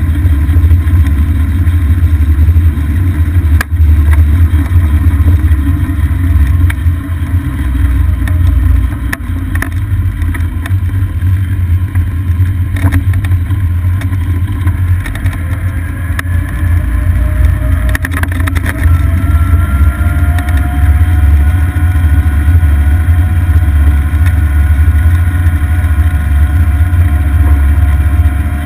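A moving golf cart: a loud, steady low rumble of wind and road noise buffeting the mounted camera's microphone. About halfway through, a faint whine rises in pitch and then holds steady.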